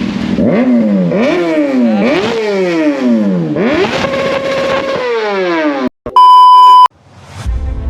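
Kawasaki ZX-6R inline-four engine revved through its exhaust pipes: four quick throttle blips, each rising sharply and falling back, then a rev held high for about a second before it drops. A loud steady electronic beep follows, and music starts near the end.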